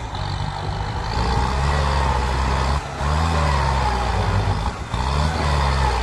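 Farm tractor's diesel engine working under load as it pushes earth, its note rising and falling, with two brief dips about three and five seconds in.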